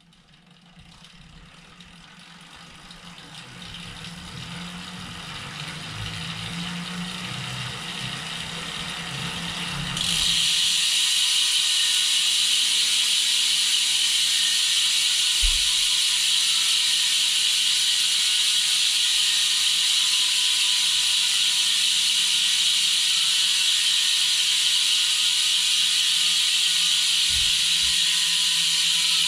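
Superteam carbon rear wheel spinning on a bike stand, its drivetrain sound growing steadily louder as it speeds up; about ten seconds in it switches suddenly to a loud, steady, high buzz, the six-pawl freehub ratchet clicking so fast that it blurs into one sound as the wheel freewheels.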